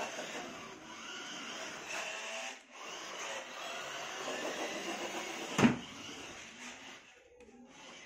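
Toy remote-control car's small electric motor and plastic gears whirring as it drives across a concrete floor, dropping out briefly near the third second. A single sharp knock comes about five and a half seconds in, and the whirring stops about a second later.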